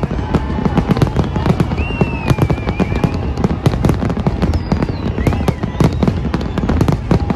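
Aerial fireworks display: a dense, continuous barrage of bangs and crackles from shells bursting in quick, irregular succession over a constant rumble.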